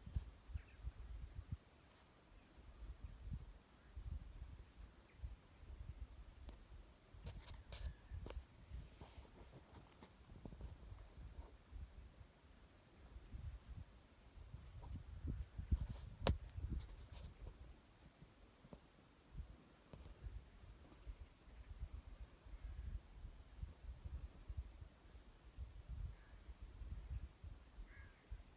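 An insect chirps in a steady, even rhythm of about three to four high pulses a second. Wind gusts rumble on the microphone, and there is a single sharp click about two-thirds of the way through.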